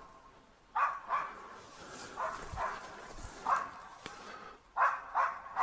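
A hunting laika barking repeatedly, about seven short barks at an irregular pace.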